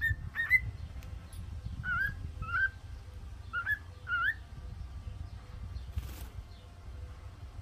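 Cockatiel calling: short upward-sweeping whistled notes in three quick pairs, then it falls silent. A brief burst of noise follows about six seconds in, over a steady low rumble.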